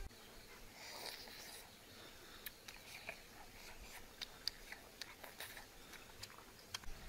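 Faint, scattered small clicks over a low background hiss.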